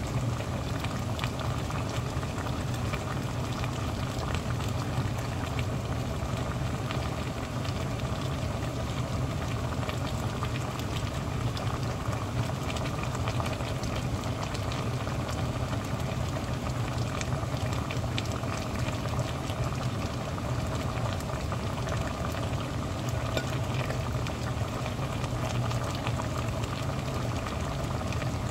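Spicy pork backbone simmering in thick red sauce in a stainless steel pot, bubbling and popping steadily over a constant low hum.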